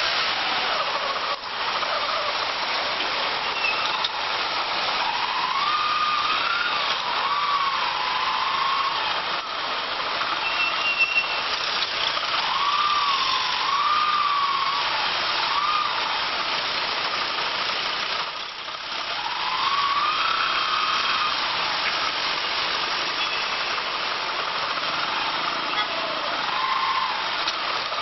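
Steady road and wind noise from a moving vehicle, with an engine whine that rises and falls several times as the vehicle speeds up and slows in traffic.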